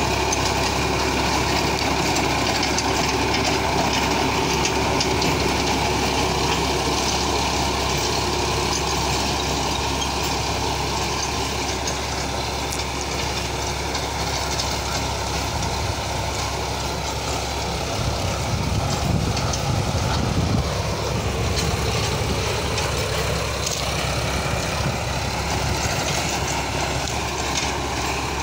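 Sonalika 745 RX tractor's diesel engine running steadily under load while pulling a Jaswant rotavator, with the tiller churning through dry soil. A low rumble comes in for a few seconds about two-thirds of the way through.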